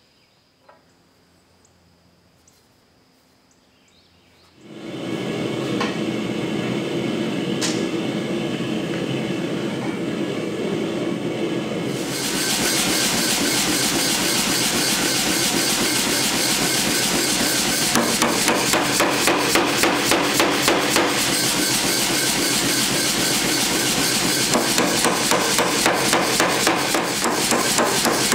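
Power hammer forging a red-hot square steel bar: a rapid, continuous run of blows from about twelve seconds in. Before that, a steady mechanical running noise sets in about five seconds in, after a few near-silent seconds with faint clicks.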